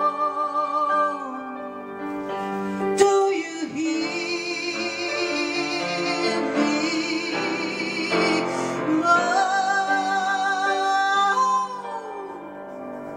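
A woman singing long, high held notes with a wide vibrato over piano accompaniment, moving to a new note about 3 seconds in and again near 9 seconds, easing off near the end.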